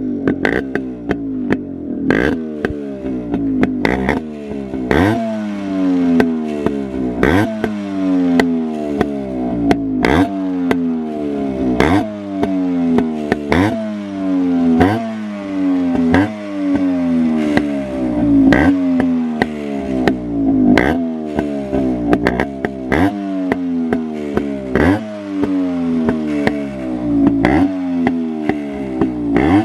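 Yamaha RX135's single-cylinder two-stroke engine running through a cat silencer with its muffler insert removed, blipped about every two seconds: each rev rises sharply and falls away. Super loud.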